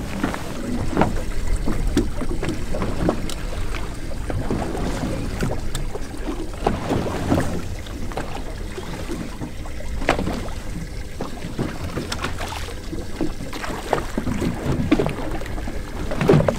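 Wind on the microphone and water lapping against a small fishing boat's hull, with scattered short knocks and splashes.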